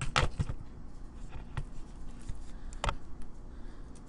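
A few scattered light clicks and taps from a computer mouse and keyboard, over a low steady hum.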